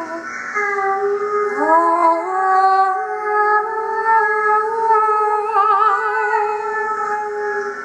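Several voices singing long held notes together in a chord. A few voices slide up to new pitches about two seconds in, and a note wavers briefly near the end.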